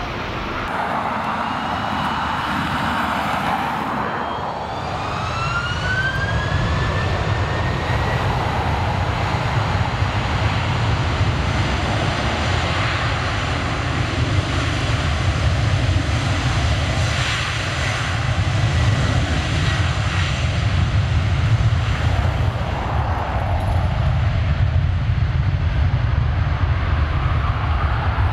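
Airbus A330 twin jet engines spooling up for takeoff: a rising whine in the first several seconds, then a deep, steady rumble that slowly grows louder.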